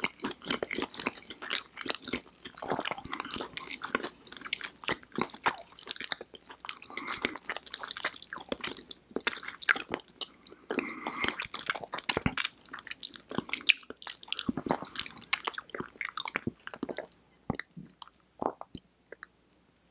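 Close-miked chewing of a fried chicken and fries meal by two people: a dense run of crunches and mouth clicks that thins out to a few scattered clicks about 17 seconds in and fades near the end.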